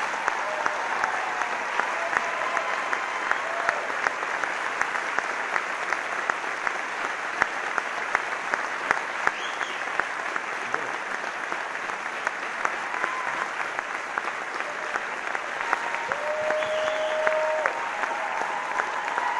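Large theatre audience applauding steadily, with a few brief voices calling out over the clapping.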